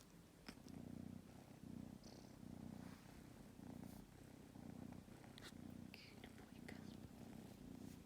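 Kitten purring faintly, the low purr swelling and easing in a steady rhythm about once a second.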